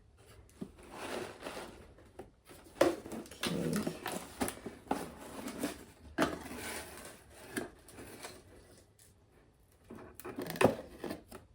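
A gift box and its packaging being handled and opened by hand: irregular rustling, with scattered taps and knocks, the sharpest about three seconds in and near the end.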